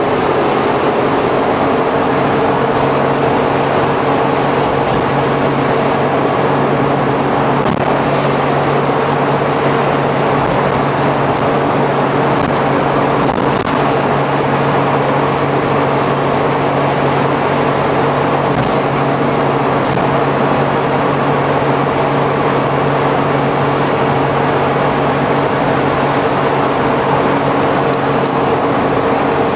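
Suzuki Every kei van with Auto Gear Shift cruising at a steady speed, heard from inside the rear cargo area. The engine and drivetrain give a steady hum at constant pitch, with no gear change, over the hiss of tyres on a wet road.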